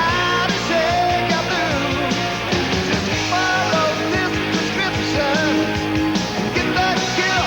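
Rock music with a sung or lead melody over guitar and a steady drum beat.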